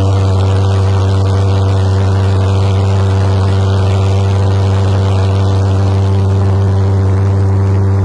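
Valveless pulsejet engines on a go-kart running at full power: a loud, steady drone held at one pitch.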